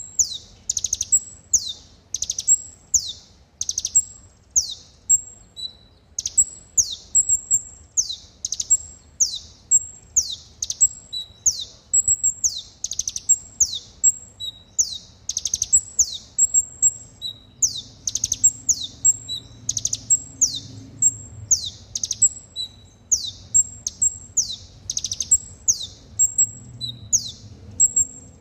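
Kolibri ninja sunbird song: a rapid, unbroken run of high, downward-sweeping notes, about two a second, with short high pips between. This is the song used as a lure recording to get other kolibri ninja to sing.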